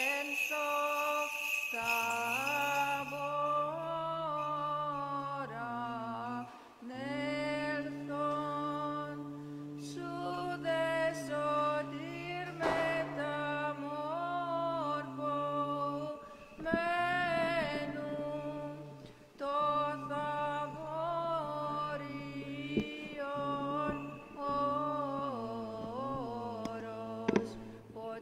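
Byzantine chant: a cantor sings a wavering, melismatic melody over a steady held drone note (the ison), which breaks off and comes back several times. Small censer bells jingle at the start and fade out about three seconds in, and a single sharp knock comes near the end as the microphone stand is handled.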